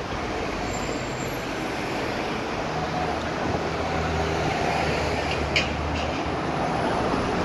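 Street traffic noise as a red London double-decker bus approaches and passes close alongside, its engine giving a steady low hum from about three seconds in that drops away a little after six seconds. A short sharp click sounds about five and a half seconds in.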